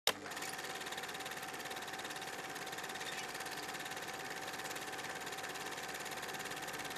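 Steady mechanical whirr with a thin whine held at one pitch, after a short click at the very start.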